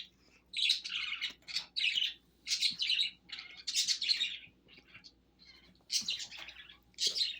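A bird chirping over and over in short high chirps, roughly two a second, with brief pauses between runs.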